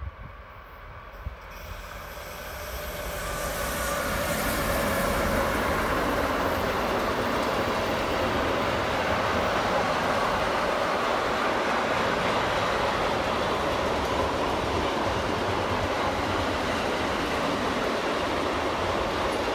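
Freight train passing: two electric locomotives hauling a long train of double-deck car-transporter wagons, the rolling noise of wheels on rails rising over the first few seconds as it nears, then a steady rumble as the wagons stream by.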